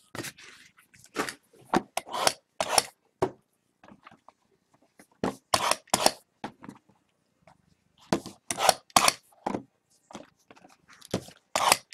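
Irregular clusters of sharp taps, knocks and scrapes as boxes of trading cards are handled and set down on a tabletop.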